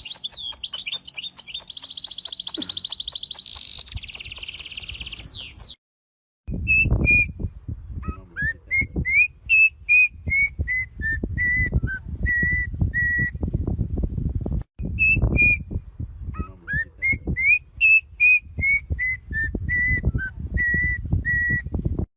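Bird whistling. It opens with rapid high trilling whistles, then after a short break gives a run of clear whistled notes, several sliding upward. The run comes twice, over low thudding noise.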